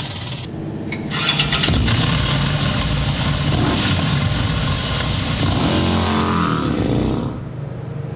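Harley-Davidson motorcycle engine running loudly and being revved, its pitch swinging up and down a few times before it drops away near the end.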